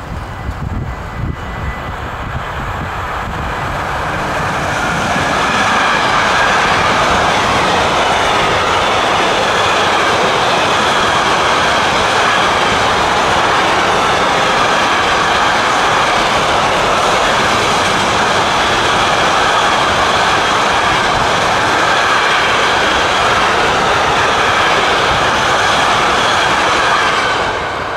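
Container freight train hauled by a Class 189 electric locomotive passing, its wheels rolling on the rails in a steady loud rush. The sound builds over the first five or six seconds and falls away sharply near the end.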